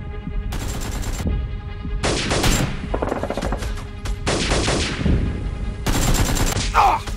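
Several bursts of rapid automatic gunfire sound effects, dubbed over a Nerf blaster fight, with background music underneath.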